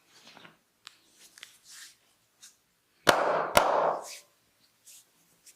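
Faint rubbing and rustling of hands on hair and skin, then about three seconds in a loud sharp crack, a second crack half a second later, and a burst of noise lasting about a second.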